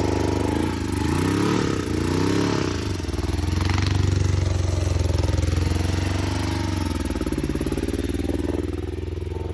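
Kawasaki Ninja 500R parallel-twin engine running and being blipped, its revs rising and falling a few times early on, then running steadier with another dip later. It does not want to idle and wants to die when it drops to idle, after its carburettor and fuel system have been cleaned.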